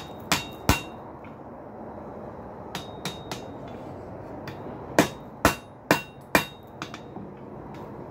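Hand hammer striking a hot steel pintle on an anvil to straighten it, each blow with a short metallic ring. Three blows come at the start, a few lighter taps about three seconds in, then four heavy blows about half a second apart, with two light taps after them.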